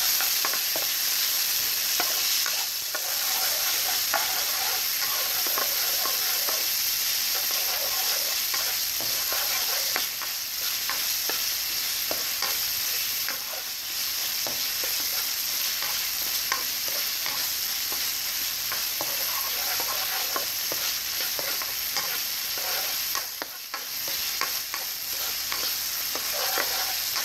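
Diced tilapia, chicken and skirt steak sizzling steadily in hot oil in a wok, stirred with a spatula that clicks and scrapes against the pan.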